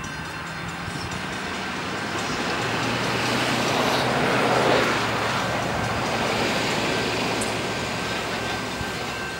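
Diesel-electric locomotives of an approaching freight train, Norfolk Southern units leading, running with a steady low engine drone and wheel noise that grow louder, peaking about halfway through, then ease slightly.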